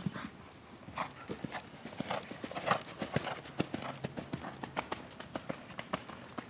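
Horse's hooves landing from a jump and cantering on sand arena footing: a run of quick, uneven thuds.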